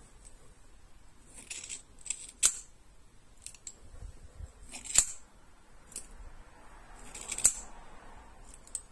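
Scissors snipping through a Barbie doll's hair, about one cut a second. Each cut is a short rasp through the hair that ends in a sharp click as the blades close.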